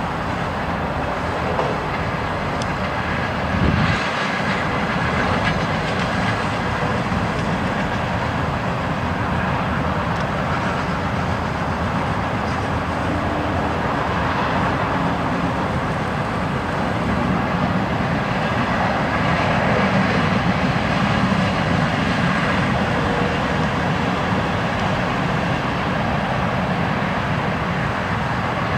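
Freight train cars rolling past in a steady rumble of wheels on rail, with a single thump about four seconds in and a faint high tone from the wheels.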